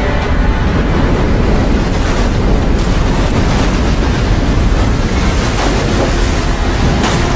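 Tsunami wave in a film soundtrack: a loud, steady rush of crashing water over a deep rumble.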